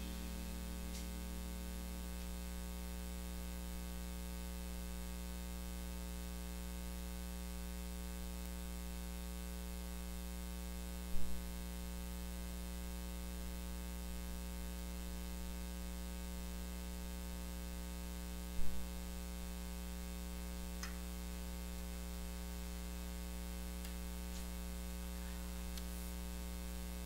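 Steady electrical mains hum with many overtones over a faint hiss, with two brief knocks, about 11 and 19 seconds in.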